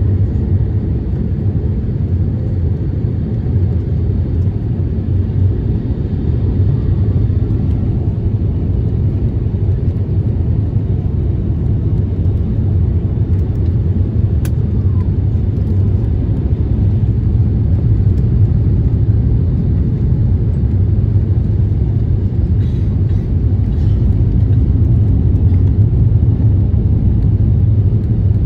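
Steady low rumble inside the cabin of an Airbus A350-1000 airliner, with one short click about halfway through.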